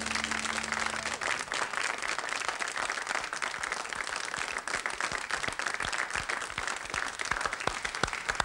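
Studio audience applauding, with the song's last held note dying away about a second in.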